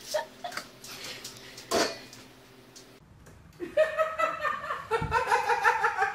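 A few knocks, then about halfway through a woman bursts into laughter, a high-pitched laugh in quick rhythmic pulses that runs on to the end.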